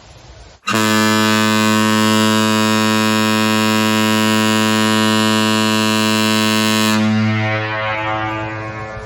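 Kahlenberg KM-110 air-powered ship horn sounding one long, deep, steady blast that starts abruptly just under a second in and holds for about six seconds. The upper tones then cut off sharply and the low note fades away over the last two seconds.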